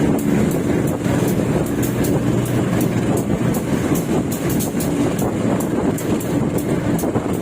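Passenger train wheels rolling over the track, a loud, steady rumble and clatter heard up close through the carriage toilet's floor opening. A train horn is dying away at the very start.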